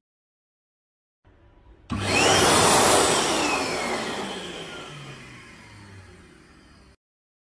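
Biodrier hand dryer starting about two seconds in with a sudden rush of air and a brief rising whistle, then winding down, its motor whine falling in pitch and fading over several seconds before cutting off abruptly.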